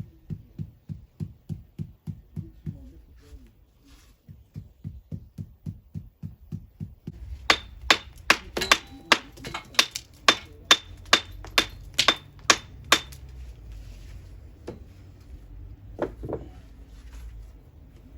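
Steady hammer blows, about three a second: dull thuds at first, then from about seven seconds in louder, sharper strikes with a metallic ring, and two last blows near the end.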